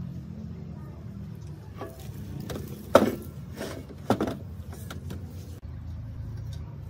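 Metal knocks during workshop work: a few light clicks, then two sharp knocks about a second apart, each with a brief ring, over a steady low hum.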